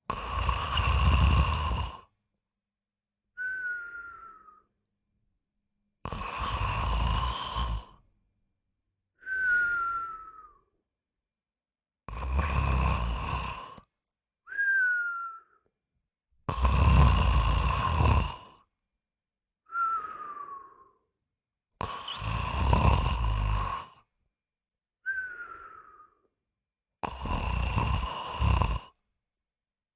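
A sleeper snoring in a slow, regular cycle: six loud snores of about two seconds each, roughly every five seconds, each followed by a short whistling breath that falls in pitch, with silent pauses between.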